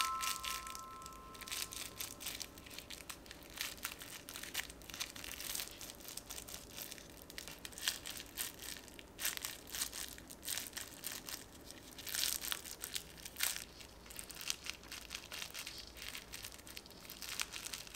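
Clear plastic wrap around a squishy fidget toy crinkling and crackling as fingers squeeze and press it. The crackles are uneven throughout, with louder clusters about halfway through and again about two-thirds of the way in.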